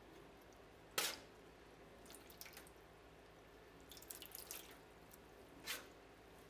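Dye water dripping and splashing off wet yarn into a stainless steel pan as the skeins are lifted and turned, in a few short patters. A sharp tap on the pan about a second in is the loudest sound.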